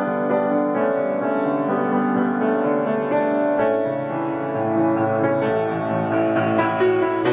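Piano music: a gentle instrumental piece of many overlapping sustained notes.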